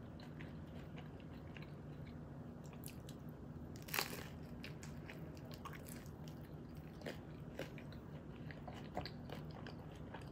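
A person biting into a crispy rolled tortilla, with one loud crunch about four seconds in, then chewing it with soft crunches and mouth clicks.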